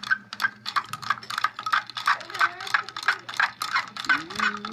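Pennies and a stirring rod clinking against a glass beaker as the pennies are stirred in a salt-and-vinegar solution to clean them: a rapid, steady clicking, several clinks a second.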